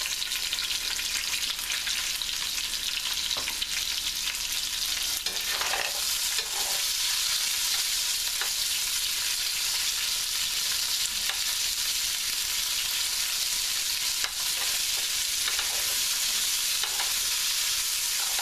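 Onions, carrots and potatoes sizzling steadily in plenty of hot oil in a stainless steel pan, with a metal spoon stirring and scraping through them now and then.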